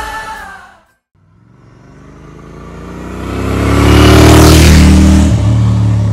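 Motorcycle approaching and passing close by: its engine grows steadily louder to a peak about four seconds in, with a rush of air as it goes past, and the engine note steps down a little just before the sound cuts off. A few moments of music fade out at the start.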